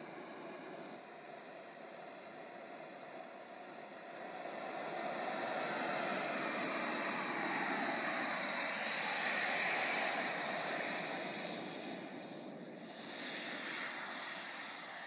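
Twin miniature jet turbines of a radio-controlled Su-37 model: a high whine over a loud rushing exhaust, the whine rising in pitch about four seconds in as the throttle is opened for the takeoff run. The sound then fades as the model climbs away.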